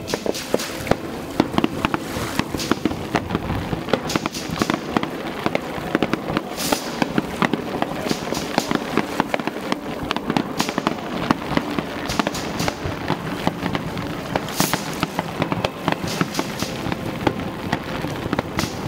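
Fireworks display going off continuously: a dense run of rapid crackling pops, with louder bangs every couple of seconds.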